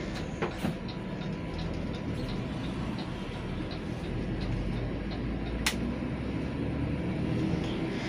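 Mercedes-Benz OF917 medium bus's diesel engine running and road noise inside the cab as the bus drives, a steady low rumble with light rattles and clicks, one sharp click a little over halfway through.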